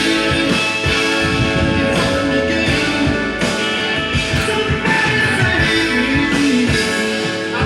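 Rock music with guitar and drums playing from a vinyl record on a Kenwood KD-4100 direct-drive turntable.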